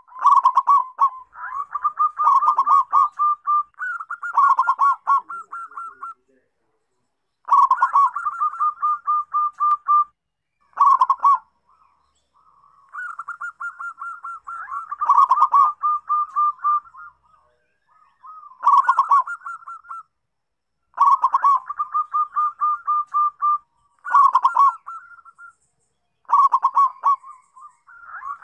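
Zebra dove (perkutut) cooing: phrase after phrase of rapid staccato coos, each phrase one to four seconds long, with short pauses between.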